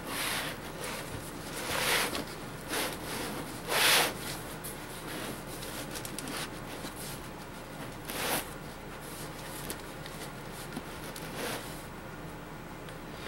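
Cardboard shipping box scraping and rubbing against a wooden countertop as it is handled, in several short bursts. The loudest come about two and four seconds in, with softer scrapes near eight and eleven seconds.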